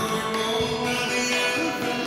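Tamil film song music: a melodic passage with held, sliding notes over a full instrumental accompaniment.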